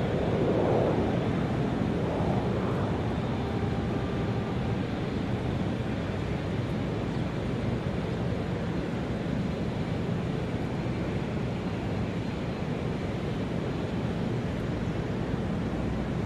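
Airport ambience: a steady, even rumbling noise with no distinct events, a little louder in the first couple of seconds.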